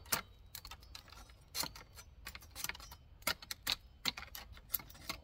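Machete blade striking and lopping small twigs off a dry, week-old cut stick held out by hand: a quick, irregular series of sharp knocks and cracks, about a dozen in all.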